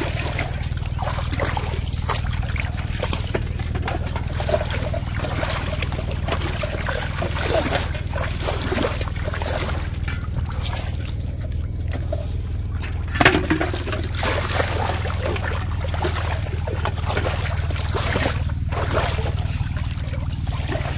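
Shallow pond water splashing and trickling as someone wades and lifts plastic bottles out of it, with one sharper splash or knock about thirteen seconds in. A steady low hum runs underneath.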